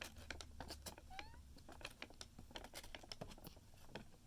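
Folded paper of an origami model crinkling and crackling faintly in scattered small clicks as it is pulled and flexed by hand. A short, faint rising squeak is heard about a second in.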